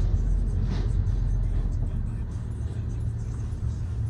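Steady low rumble of a car driving at low speed, engine and tyre noise.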